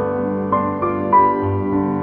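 Soft piano background music, single notes struck one after another over held chords.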